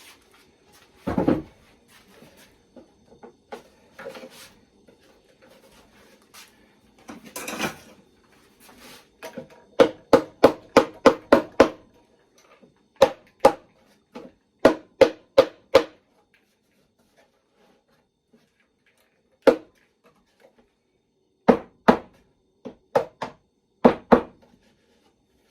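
A plywood nuc box being handled and knocked on: a low thump about a second in, then several quick runs of sharp wooden knocks, about four a second, with a single knock between them.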